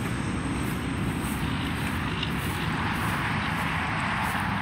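Steady drone of freeway traffic: a continuous wash of road noise with a low rumble and a hiss that swells slightly midway.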